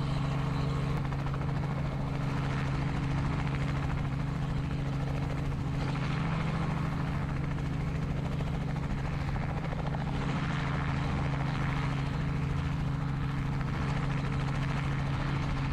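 Robinson helicopter's rotor and engine running steadily as it hovers low and sets down on the landing pad.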